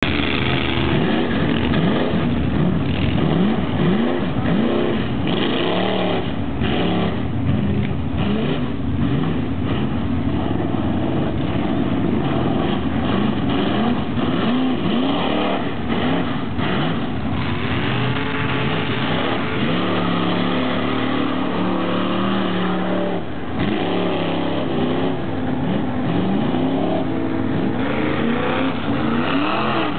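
Mud bog trucks' engines revving hard and repeatedly, the pitch climbing and dropping over and over as the trucks power their tyres through a deep mud pit.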